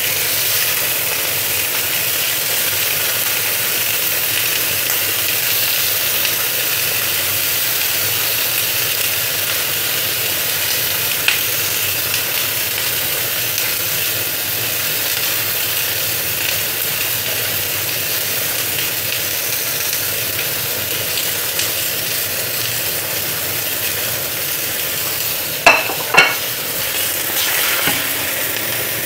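Prawn shells and leek-wrapped fish rolls sizzling in a small stainless steel frying pan, a steady hiss. There is a light click partway through and two sharp metal clinks near the end, tongs against the pan.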